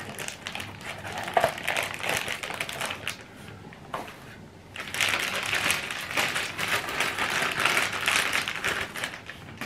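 Clear plastic bag crinkling as it is handled and unwrapped, in two spells with a quieter pause between them.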